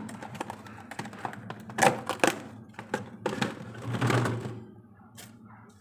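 Stored food containers and packs being handled in a fridge: a run of small clicks and knocks with louder rustling about two seconds in and again around four seconds, then quieter handling.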